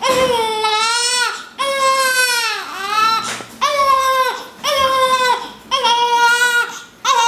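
Newborn baby crying hard, a run of about five wails, each about a second long with short breaks between, several falling in pitch at the end.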